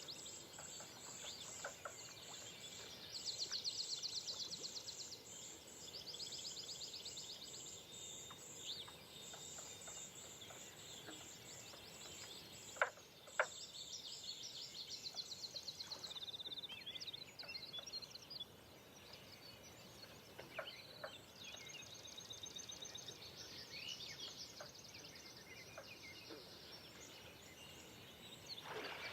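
Birds calling at sunrise: many rapid high trills and chirps overlapping, over a faint steady hiss, with two sharp clicks about thirteen seconds in.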